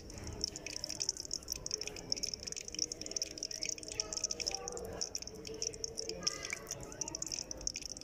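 Gulab jamun dough balls frying in hot oil in an aluminium pot: a steady high sizzle made of many small crackles.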